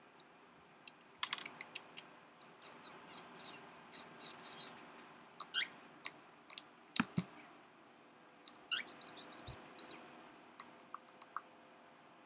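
Short high chirps and squeaks in quick runs, some sliding down in pitch: a person making kissing and chirping noises at a cockatiel, mixed with the bird's own calls. A few sharp clicks come in between.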